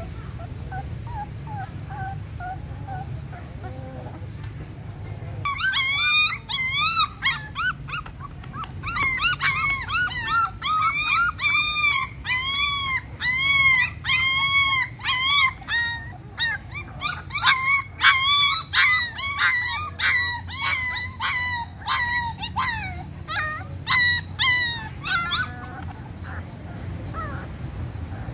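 Young puppies whining and crying: faint whimpers at first, then from about five seconds in a run of loud, high, arching cries, about two a second, that stops a few seconds before the end.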